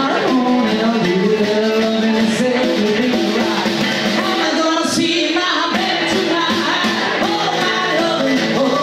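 Live rockabilly band playing: an electric hollow-body guitar with singing.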